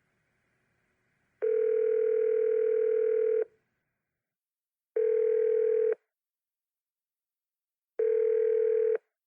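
Telephone ringback tone: a steady low tone heard in beeps, first about two seconds long, then two one-second beeps about three seconds apart.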